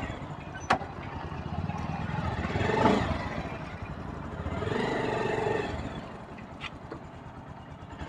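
Bajaj Pulsar RS200 single-cylinder motorcycle engine running at idle while the bike edges forward at walking pace. The engine swells louder about three seconds in, then settles back. A sharp click comes just under a second in.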